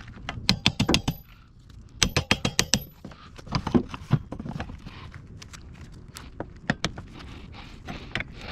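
Quick runs of sharp clicking and snapping as a stuck plastic trim piece in a Ford Escape's battery area is worked loose with a pry bar, then scattered single clicks.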